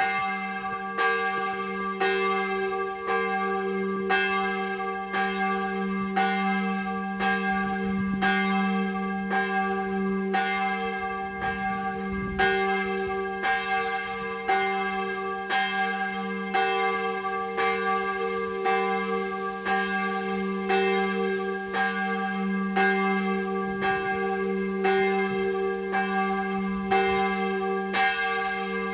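Church bells of Snedsted Church ringing in a steady, even rhythm, about one and a half strokes a second, each stroke's hum ringing on under the next.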